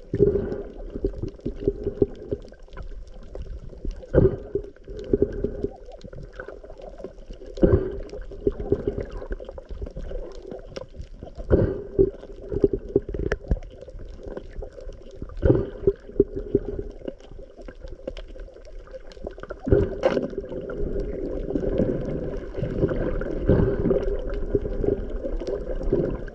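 Muffled underwater sound picked up by a camera in its waterproof housing: water sloshing and gurgling against it, with a sharp knock every three to four seconds.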